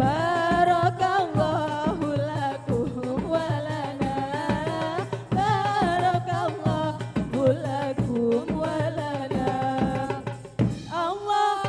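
Live music: a sung melody over hand-drum percussion, recorded straight from the mixing desk.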